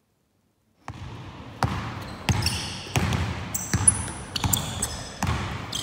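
Basketball dribbled hard on a hardwood gym floor, starting about a second in, with about one bounce every three quarters of a second ringing in the large hall. Sneakers squeak on the floor between the bounces.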